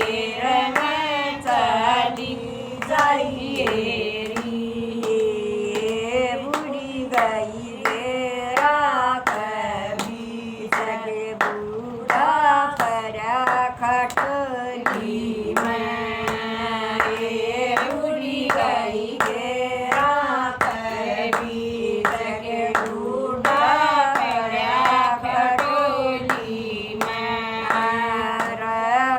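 A Haryanvi devotional bhajan sung to a repeating tune, with steady hand claps keeping time.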